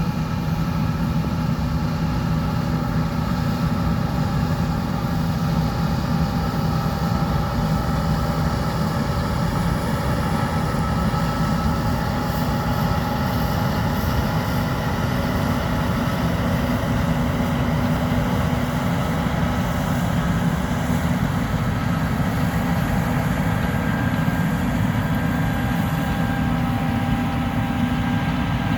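John Deere T560 combine harvester running steadily: a constant heavy engine drone with faint steady whining tones above it.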